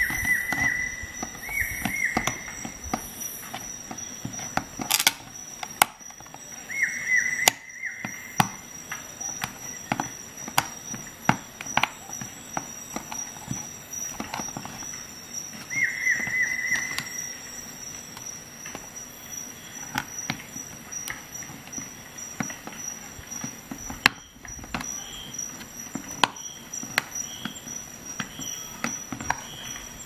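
A multi-tool's hook-style can opener levering its way along the rim of a steel fish tin. It makes a run of irregular sharp metal clicks and crunches as the blade bites through the lid, with a short squeal of metal four times.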